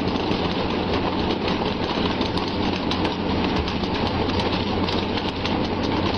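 A motor running steadily under dense rattling and rushing noise, with a low even hum.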